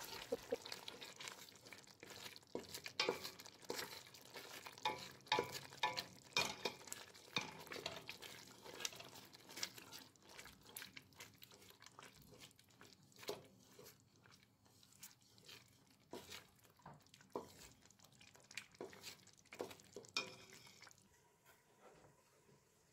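Wooden spoon stirring a thick onion sauce in a stainless steel pot, with irregular scrapes and light knocks against the pot, as the sauce is cooked down until its water is gone. The stirring stops near the end.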